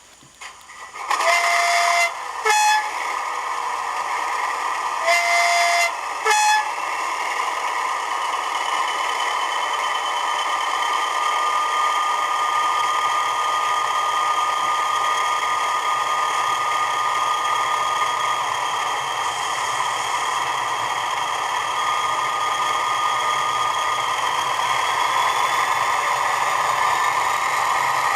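Class 20 diesel locomotive sounds played back from a DCC sound decoder in a model. A two-tone horn sounds twice, each time a low note then a short high note, over the engine running steadily with a high-pitched turbocharger whistle that rises slowly toward the end.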